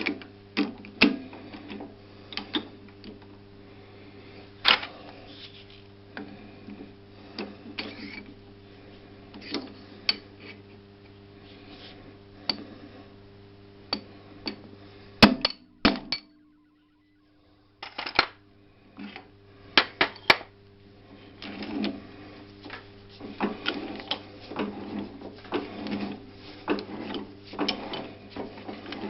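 Irregular metallic clicks, taps and knocks of hand tools working on the chuck of a Master MS 03 lathe while it is being removed. A steady low hum runs underneath, and the sound drops out completely for a moment a little past halfway.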